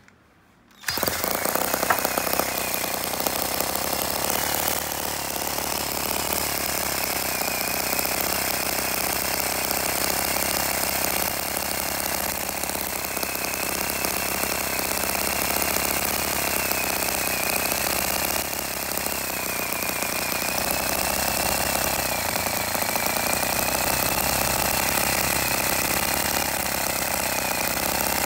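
The small engine of a brass model tractor starts up about a second in and then runs steadily with a fast, rattling beat, its pitch wavering slightly. Meanwhile the gearbox is driven with the wheels off the ground.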